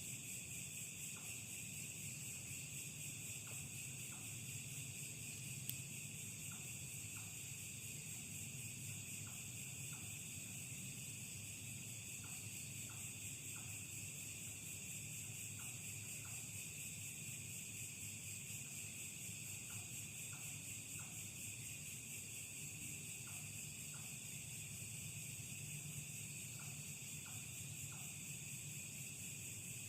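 Night insect chorus, crickets droning in a steady high-pitched wash, with scattered short faint ticks and a low hum underneath.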